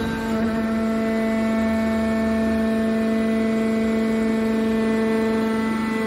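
Hydraulic power unit of a scrap metal shear baler, its electric motor and pump running with a steady, even-pitched hum.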